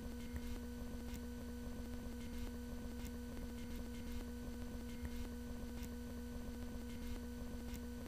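Steady low electrical hum, a single held tone with a fainter overtone above it, with a few faint clicks now and then.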